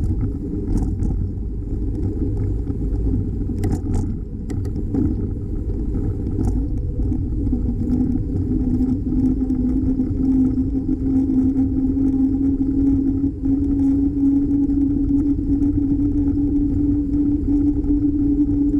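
Steady low rumble of wind and road noise on a moving bicycle, with a hum that grows louder and rises slightly in pitch from about eight seconds in, and a few light clicks around four seconds in.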